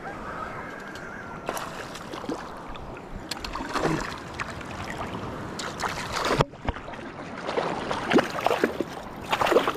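Water sloshing and lapping, with scattered short clicks and taps over it.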